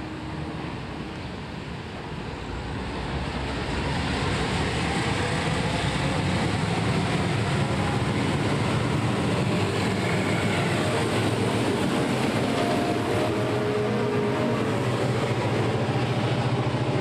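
Two diesel-electric locomotives running light engine, a New South Wales 44 class with its Alco V12 leading a 49 class, pass close by. Their engines' low drone grows from about three seconds in and stays loud as they go by.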